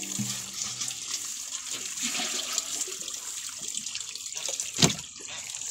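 Water sloshing and splashing as a metal bucket is dipped into a tank of water to scoop out small tilapia, with one sharp knock a little before the end.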